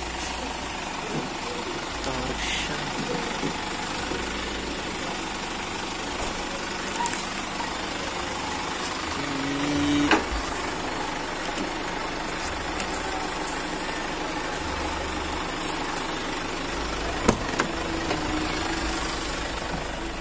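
Isuzu Elf minibus engine running at idle under a steady rushing noise. A sharp knock comes about ten seconds in, and another near the end.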